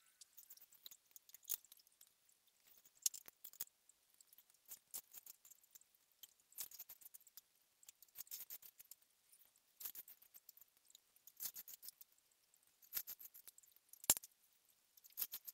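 Strands of fine 2.5 mm chair cane being pulled and woven through a caned seat: light, irregular clicks and rustles in quick clusters, with one sharper click near the end.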